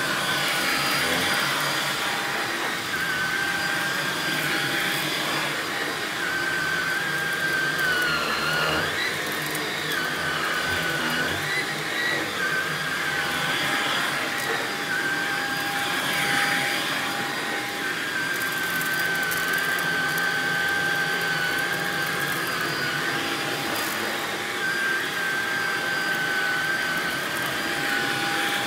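Upright vacuum cleaner running steadily as it is pushed back and forth over a shag rug, its motor whine wavering slightly in pitch. Now and then rice grains crackle as they are sucked up.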